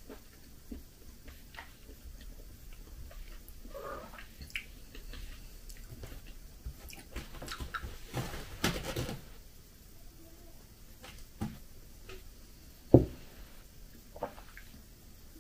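Faint, scattered rustles and light taps, with a denser stretch of rustling about eight seconds in and a single sharp knock about thirteen seconds in.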